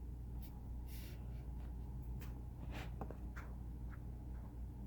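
Quiet room with a low steady hum and a few faint, scattered light clicks and rustles, like small handling noises.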